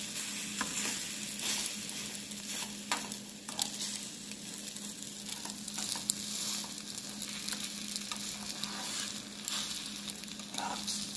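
Beaten eggs with onion leaves sizzling in a hot metal frying pan, with a slotted metal spatula scraping and tapping against the pan as it pushes the egg back together.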